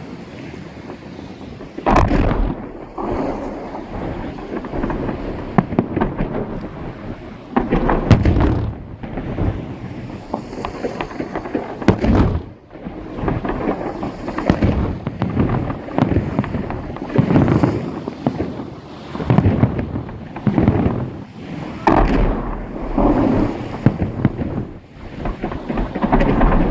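Fireworks salute: repeated booms of shells bursting overhead, each followed by a rolling echo, with smaller pops and crackle between. The biggest bangs come about 2, 8 and 22 seconds in.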